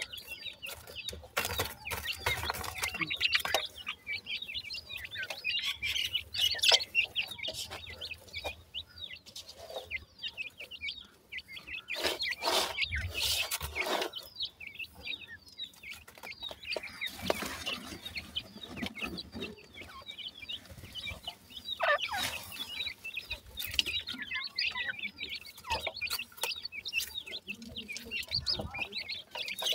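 Francolin chicks giving many short, high chirping calls while they feed. Several bursts of rustling and crumbling come from dry soil being dug and stirred by hand and by the birds.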